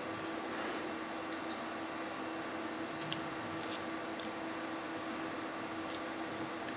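Faint, scattered small clicks and light scrapes from a Gerber Edge utility knife's metal parts being handled as a replaceable blade is worked into its spring-lock holder, over a steady low room hum.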